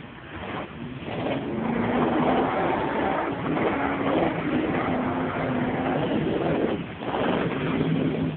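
Hummer H3's engine running under load as the SUV drives through mud, getting louder about a second and a half in and easing off briefly near the end.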